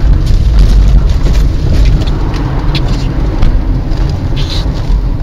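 Car driving on a rough road, heard from inside the cabin: a steady low rumble of engine and tyre noise with scattered small knocks and rattles.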